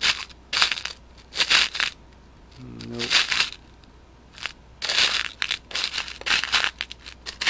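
Hands rummaging through an assortment of loose small screws and nuts, giving irregular bursts of rattling and clattering of the small metal parts.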